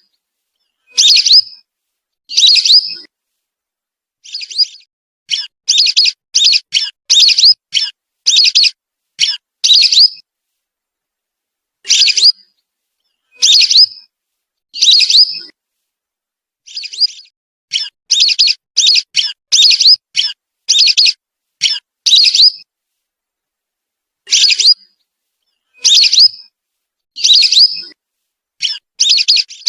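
Whistling duck (belibis) calls played as a bird-lure recording: short, high whistled calls, some single and some in quick runs of several, with spells of dead silence between groups.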